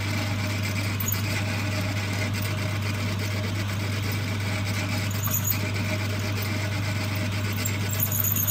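1953 Boxford metal lathe running with a steady motor hum while a quarter-inch drill is fed in to open out a hole in a steel bar held in the four-jaw chuck.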